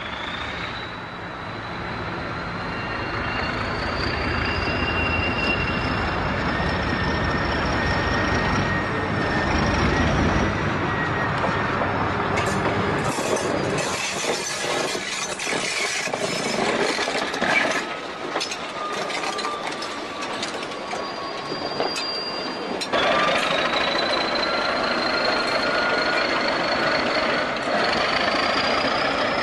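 Diesel switcher locomotive running as it approaches and passes close by, pulling freight cars. Thin wheel squeals come through, and a run of sharp clicks from the wheels passes through the middle. The sound changes abruptly about two-thirds of the way through.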